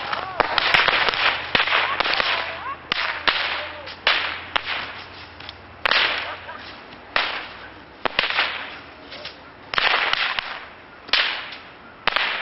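Bottle rockets launching from a washtub a few at a time rather than all at once: a string of sudden hisses, about a dozen, each fading within a second, with a few sharp pops among them.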